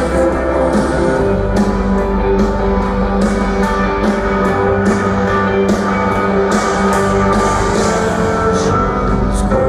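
Live band playing an instrumental passage: held guitar notes over a bass line, with drums and cymbal hits keeping an even beat.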